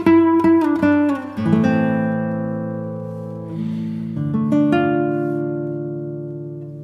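Background music on acoustic guitar: a few quick plucked notes, then chords left to ring out and slowly fade, with a new chord struck a little past the middle.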